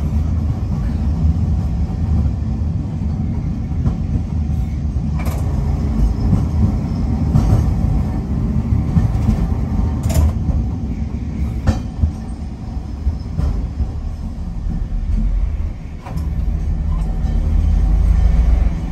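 Nagasaki Electric Tramway streetcar running on street track, heard from the cab: a steady low rumble of motors and wheels, with a few sharp clicks from the wheels on the rails. The rumble grows louder near the end as the tram rolls over the crossing tracks of a junction.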